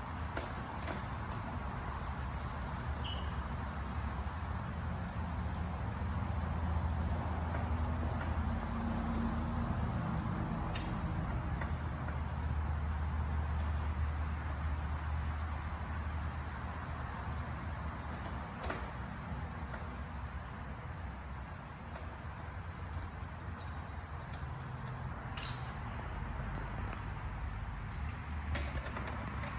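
Steady background rumble and hiss, with a few faint clicks of hand tools working on the motorcycle's tail.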